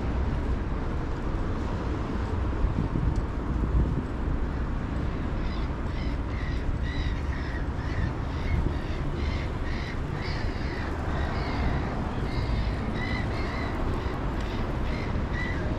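Birds calling: a run of short repeated calls, about two a second, starting about five seconds in, over a steady low rumble.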